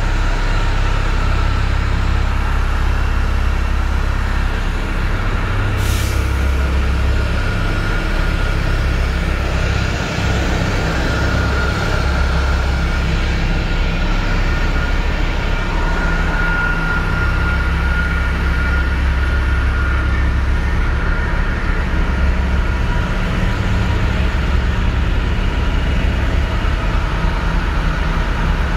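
Transit bus diesel-type engine idling with a steady, heavy low rumble and a faint steady whine above it. A short hiss is heard about six seconds in.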